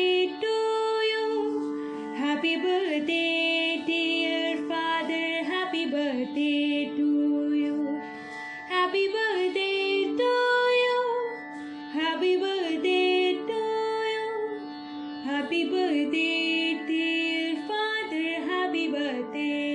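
A young woman singing a melodic song solo, her voice sliding between notes, over instrumental backing with long held notes.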